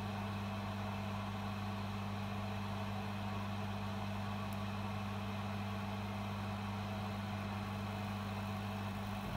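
A steady low hum with a faint hiss, unchanging throughout.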